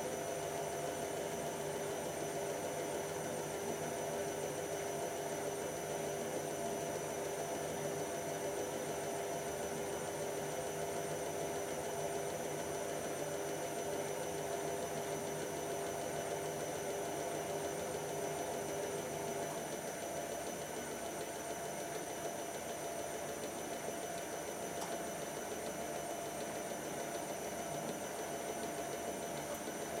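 Two front-loading washer dryers running their cycle with a steady mechanical hum and several steady tones. One of the tones cuts out about two-thirds of the way through.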